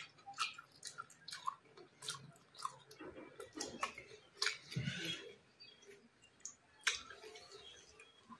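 Close-up wet chewing and lip smacks of a person eating mouthfuls of rice with dal and curry, with many short, irregular clicks. The sounds are densest about five seconds in.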